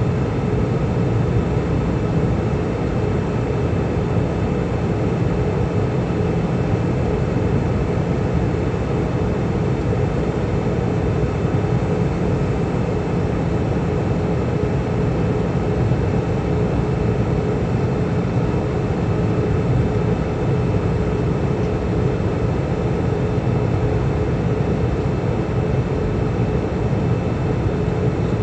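Airbus A320 cabin noise in flight: a steady rush of airflow and engine drone, with a few faint, unchanging hum tones.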